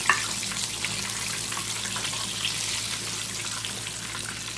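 Buttermilk-battered chicken deep-frying in hot oil in a cast-iron skillet: a steady sizzle full of small crackles, with one sharp click just after the start.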